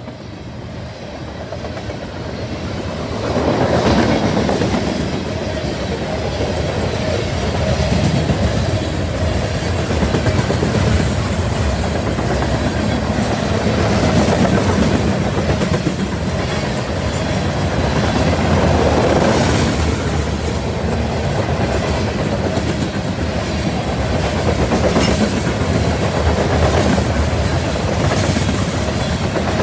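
Freight train of covered hopper cars rolling past, steel wheels clattering rhythmically over the rail joints. The sound grows louder for the first three seconds or so, then holds steady.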